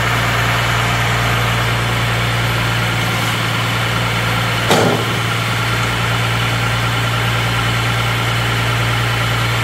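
John Deere 3350 tractor's diesel engine idling steadily. A single metal clank sounds about halfway through.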